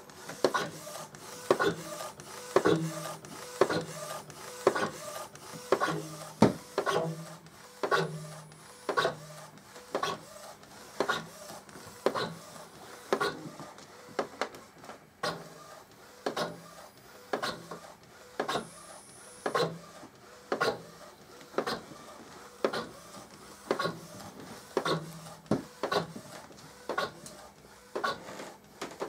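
Epson Stylus Photo R1900 inkjet printer, converted for direct-to-garment printing, running a print job: its print head carriage sweeps back and forth in a steady rhythm, a sharp click about one and a half times a second with a short low motor hum between clicks.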